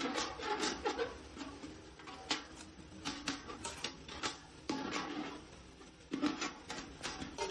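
Hand hammer tapping galvanized sheet metal: irregular strikes in quick runs with pauses, each with a short metallic ring.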